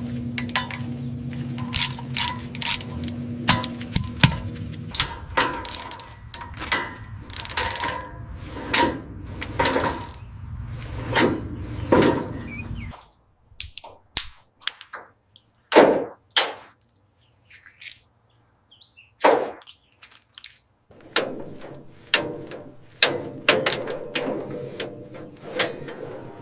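A string of irregular metallic clanks and knocks, as from hand tools working on metal car parts. A steady machine hum runs under them until about halfway, after which the knocks come more sparsely.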